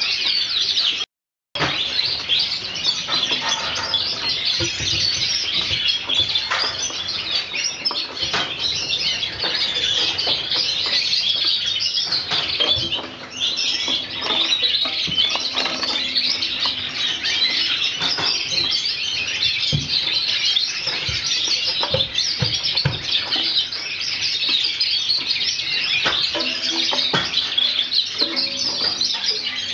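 Many small cage birds chirping and twittering all together in dense, continuous chatter, with a brief cut to silence about a second in.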